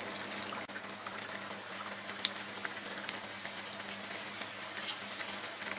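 A samosa deep-frying in hot oil in a kadai: a steady sizzle of bubbling oil with many fine crackles.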